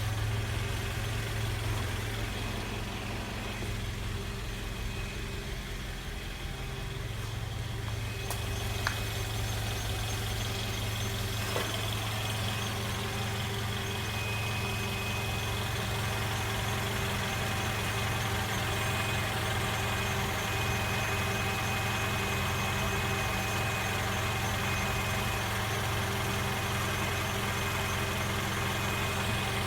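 Toyota Wish running with a steady low engine hum and a thin, high-pitched whine that becomes clear about halfway through: an abnormal transmission noise.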